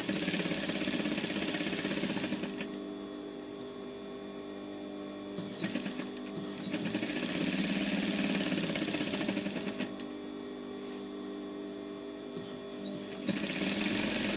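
Industrial sewing machine stitching in short runs, starting and stopping several times, with a steady hum underneath in the pauses.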